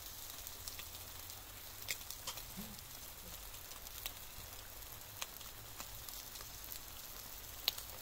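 Chicken wings sizzling quietly on a charcoal grill, with sparse sharp crackles and pops scattered through, over a steady low rumble.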